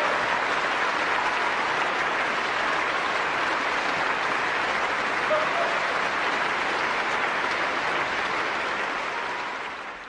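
Large concert audience applauding steadily, fading out near the end.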